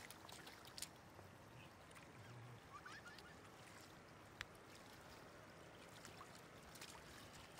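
Faint trickle of shallow water running over a road surface, with a couple of small sharp taps and splashes as a hand grabs at a small catfish in the water.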